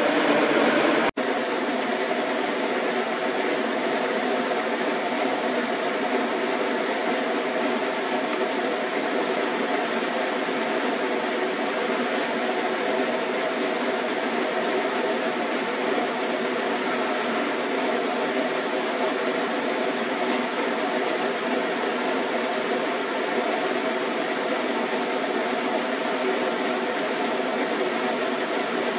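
Steady rushing noise with faint steady hum tones in it, cut by a brief dropout about a second in.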